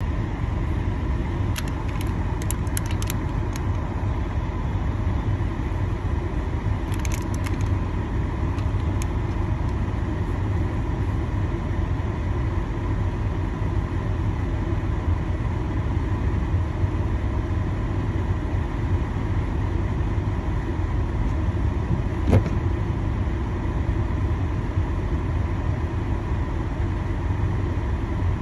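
Steady low rumble inside a car's cabin while it sits idling in traffic, with a faint steady whine above it. A few light clicks come in small clusters in the first nine seconds, and one more comes about 22 seconds in.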